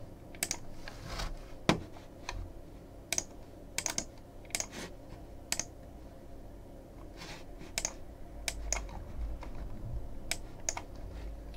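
Scattered single clicks of a computer keyboard and mouse, about a dozen at uneven intervals rather than steady typing, over a faint low room hum.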